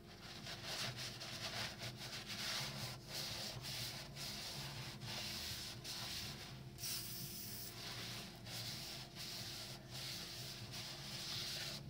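A paper towel wetted with WD-40 being rubbed round the freshly honed cylinder wall of a 1.2 PureTech engine block, a steady scrubbing in repeated strokes. It is wiping out the honing debris, stone grit and metal shavings, after honing.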